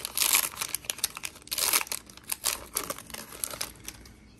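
Foil wrapper of a Pokémon trading-card booster pack crinkling as it is torn and peeled open by hand, in several short irregular bursts that die away near the end.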